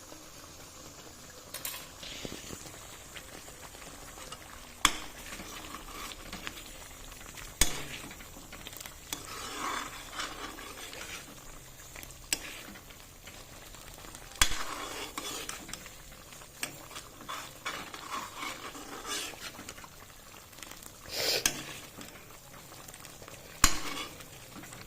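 Thick tomato-onion masala sizzling in a pan while a spoon stirs and scrapes through it, with several sharp knocks of the spoon against the pan.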